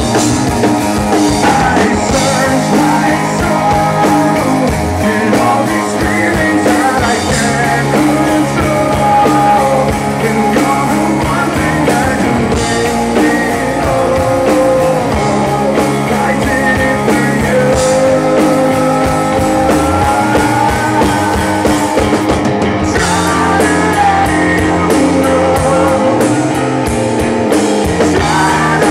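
Live rock band playing loudly: distorted electric guitars, bass and a drum kit, with a sung lead vocal over them.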